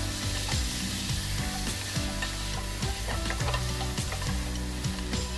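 Wooden spatula stirring and scraping chunks of beef tripe through spice paste in a sizzling oiled non-stick pot, with frequent short scrapes over a steady sizzle.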